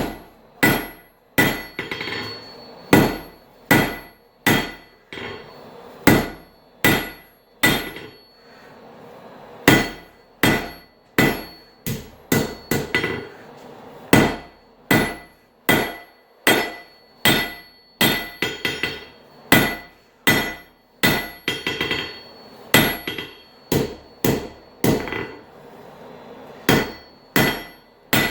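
Blacksmith's hand hammer striking a hot railroad spike on an anvil, steady blows a little more than one a second with a couple of short breaks, each with a brief high metallic ring: the hot steel is being flattened into the spoon of a shoehorn.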